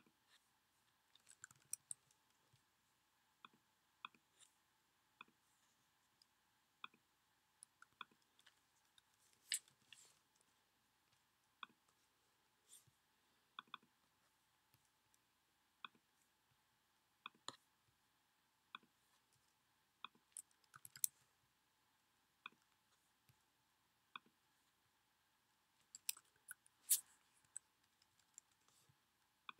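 Faint, sparse computer clicks and keystrokes from a mouse and keyboard: single clicks every second or so, with a few short runs of quick taps, the loudest near the end.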